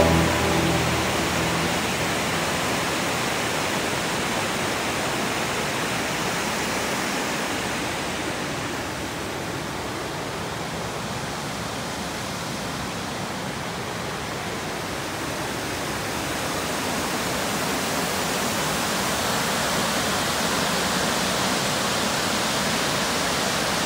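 Steady rushing of water pouring through a dam's spillway, with the gates opened to release water for irrigation. It is a little quieter in the middle and louder again toward the end.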